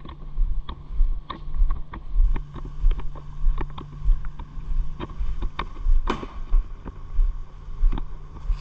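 Loaded fishing kayak pulled along a paved path: a steady rolling rumble with gear clicking and rattling in the hull, and footsteps about every two-thirds of a second.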